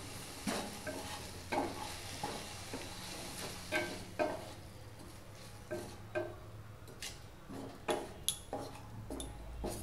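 Wooden spatula stirring cubes of paneer in an Amway Queen stainless steel sauté pan, scraping and knocking irregularly against the pan. A light frying sizzle from the paneer browning in a little oil, strongest in the first few seconds.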